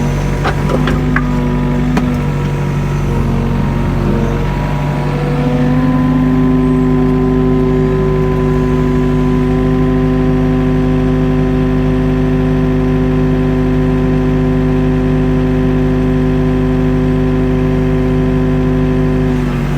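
Mini excavator's diesel engine running steadily under work, with a few short knocks in the first two seconds. About five seconds in, a higher steady tone joins the engine sound and holds.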